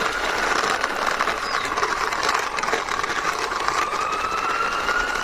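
Toy ambulance's siren giving a slow wail, one tone that dips and then climbs again over several seconds. Under it, a fast clicking rattle from the toy's plastic wheels rolling as it is pushed along by hand.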